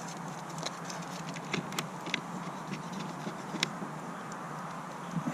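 Scattered light clicks and taps from hands working the trolling motor's power wire connection, over steady background noise.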